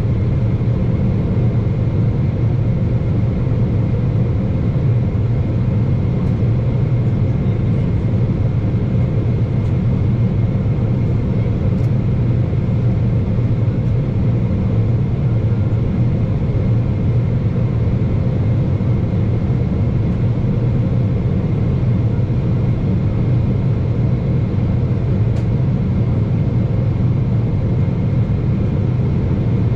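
Steady cabin noise inside a Boeing 777-300ER on approach, heard at a window seat beside the wing: a low rumble of airflow and its GE90-115B turbofan engines, with a faint steady high whine.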